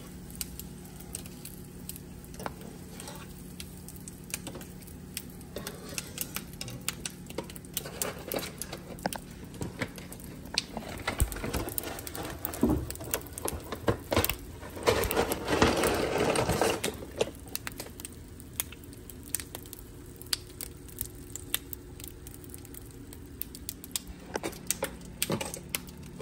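Hot frying oil crackling with many scattered sharp pops as pork skin pellets fry and puff up, growing denser and louder for a few seconds in the middle. A faint steady hum runs underneath.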